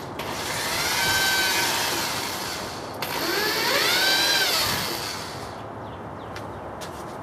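Power drill driving screws into a wooden sacrificial fence, in two runs: each time the motor whines up in pitch and then slows back down. A sharp click comes between the two runs.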